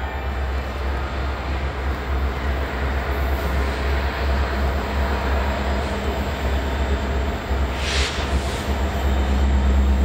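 Norfolk Southern freight train's diesel locomotives approaching, a steady low engine rumble that grows slowly louder as the train nears.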